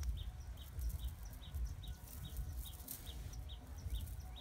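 A bird repeating a short, high, slightly falling chirp at an even pace of about two and a half calls a second, over a low, uneven rumble.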